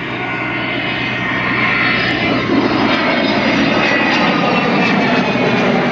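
Avro Vulcan bomber's four Rolls-Royce Olympus jet engines as it flies past, the jet noise growing louder over the first few seconds and then holding steady and loud.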